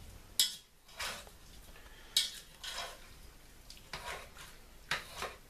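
A spoon stirring diced turkey breast in a cooking pot, knocking and scraping against the pot several times, over a faint steady hiss of the meat frying.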